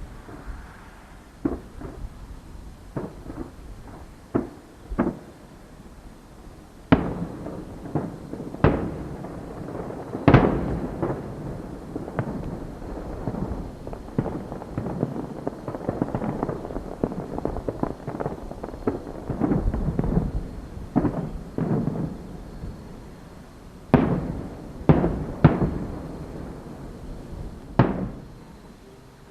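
A fireworks display with shells bursting in sharp booms, each trailing off in a rumble. Between the booms runs a nearly continuous rumble and crackle of overlapping bursts, busiest in the middle; the loudest booms come about a third of the way in and again near the end.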